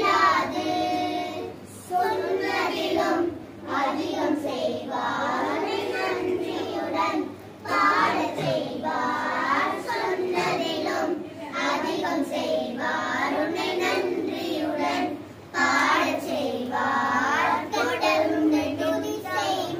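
A group of children singing a song together in unison, in phrases broken by short pauses every few seconds.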